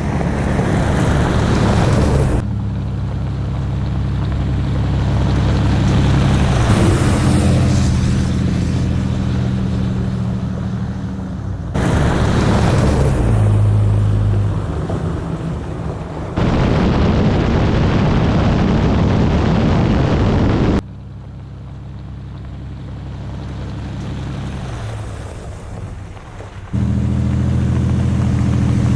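Pickup truck running, with a steady low engine drone under road and wind noise. It comes in several clips that cut abruptly from one to the next.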